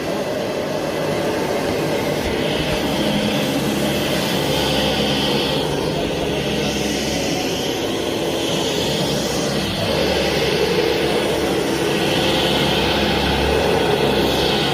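Vacuum cleaner running continuously, its steady whooshing hum swelling and easing every couple of seconds.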